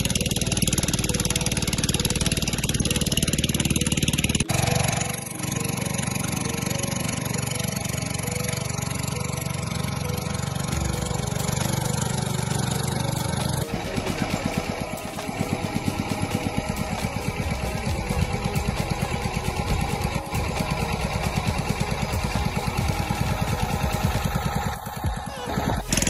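Motorboat engine running steadily with a low drone. Its sound changes abruptly twice, and from about fourteen seconds in it has an evenly pulsing beat.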